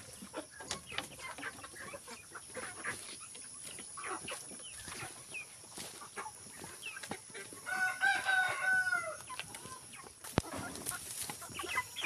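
Chickens clucking and chirping, with a rooster crowing once about eight seconds in, a single crow lasting just over a second.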